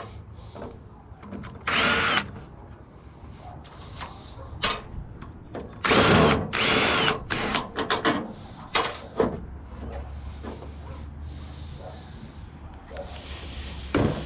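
Power drill running in short spurts, its motor pitch rising and falling, about two seconds in and again for a longer run around six to seven seconds, with clicks and knocks of metal parts between.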